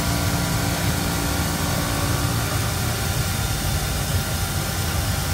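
CNC stone machining center running steadily as its water-cooled spindle tool cuts a marble panel, a constant machine drone with hissing noise. A steady low hum in it stops about two and a half seconds in.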